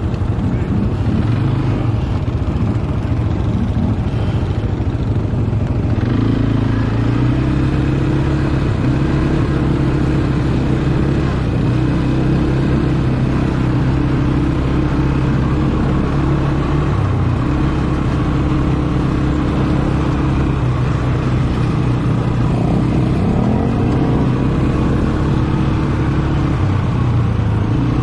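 ATV engine running under way, its pitch stepping up and down with the throttle and rising about three-quarters of the way through.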